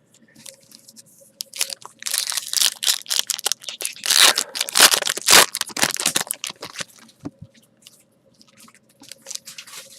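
Trading-card pack wrappers being torn open and crinkled, a dense crackling stretch through the middle with several sharp, loud cracks.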